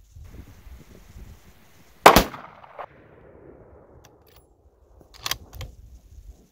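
A single shot from a 7mm Remington Magnum Browning rifle about two seconds in, its report trailing off over about a second and a half. Two smaller sharp clicks follow about three seconds later.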